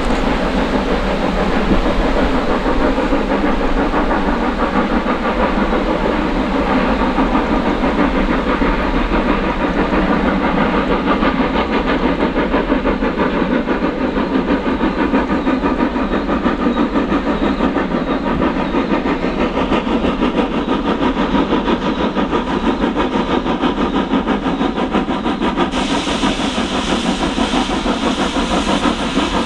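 Two steam locomotives double-heading a train, their exhaust beats running in a fast, steady chuff. A hiss of steam grows louder near the end as they draw close.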